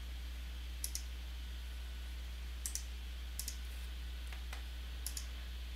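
Computer mouse clicking: four quick double clicks, spread a second or two apart, over a steady low hum.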